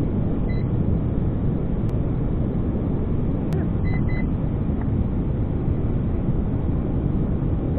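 Steady wind buffeting the action camera's microphone, a dense low rumble. Short electronic beeps come once about half a second in and twice in quick succession about four seconds in.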